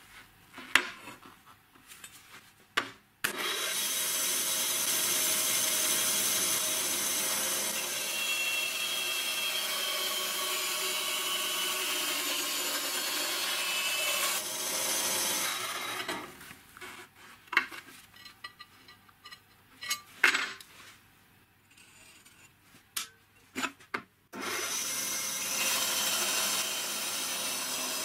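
Band saw cutting through 4 mm steel plate: the blade rasps through the metal in two long, steady runs, the first starting about three seconds in and the second near the end. Scattered clicks and knocks come before and between the cuts as the plate is handled.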